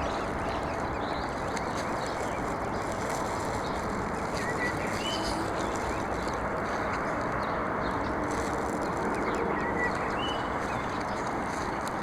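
A steady rushing noise, with short high bird peeps twice, about four and ten seconds in.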